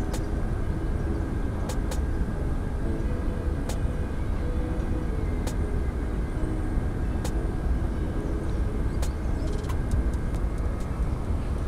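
Steady low rumble of road traffic, with a few faint clicks scattered through it.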